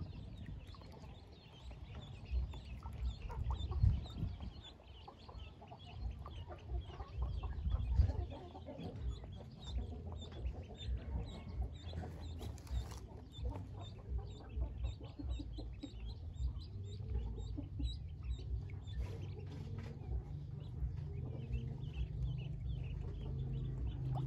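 A brood of Pekin ducklings peeping together: a dense, continuous chorus of short high chirps, with a few low thumps underneath, loudest about 4 and 8 seconds in.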